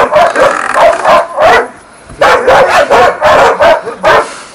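Hunting laikas barking in quick succession, about three barks a second, with a short break about two seconds in.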